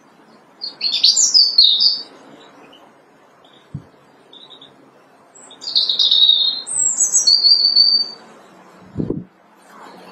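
European robin singing two phrases of high, quick warbling, the first about a second in and a longer one from about five and a half to eight seconds in, over faint low background noise. A short low thump comes near the end.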